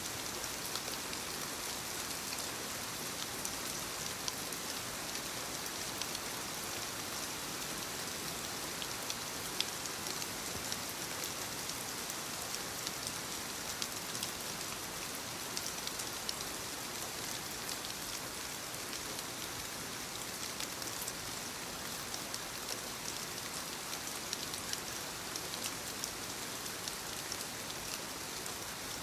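Soft rain falling on leaves: a steady hiss of rainfall with many separate drops ticking on the foliage.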